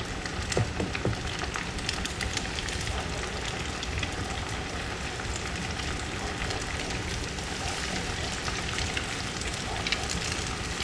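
Flour-and-cornmeal-coated flounder pieces sizzling and crackling steadily as they deep-fry in hot oil in a skillet.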